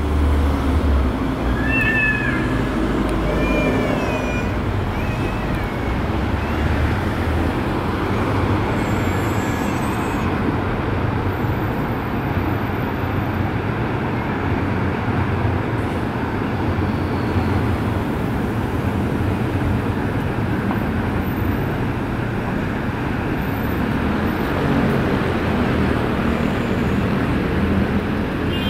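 Steady city traffic noise, a continuous rumble and hiss, with a few short, high, wavering calls in the first several seconds.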